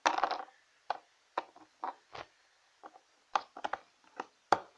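Small plastic toy parts clicking and tapping as a dinosaur skeleton figure is pressed and fitted into its plastic case: a short rustle at the start, then a run of irregular sharp clicks, the loudest near the end.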